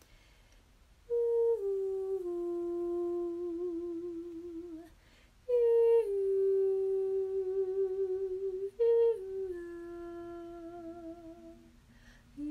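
A woman's voice humming three long held notes as sound healing. Each note starts higher, steps down to a lower sustained pitch, and wavers near its end.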